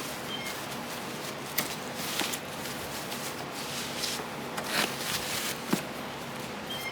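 Irregular rustling and crinkling of packaging, with a few light clicks and taps, as small car parts are unpacked and handled.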